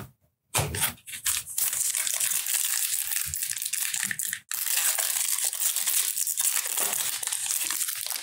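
Foil wrapper of a 2018 Stadium Club baseball card pack crinkling and tearing as it is ripped open, with a short break about halfway through.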